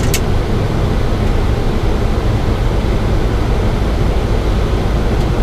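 Steady rushing noise of airflow and engines inside a Boeing 737 flight deck on approach, with one short click just after the start.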